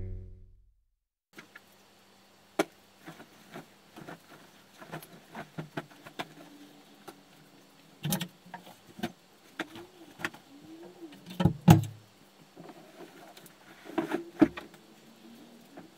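Metal-framed sofa bed being folded up by hand: scattered clunks, clicks and knocks of the frame and mattress, with a short wavering squeak just before the loudest knocks a little past halfway, and more knocks near the end.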